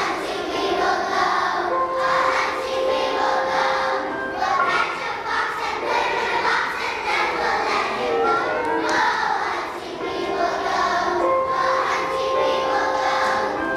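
A large group of kindergarten children singing a song together with musical accompaniment, holding some notes for a second or two.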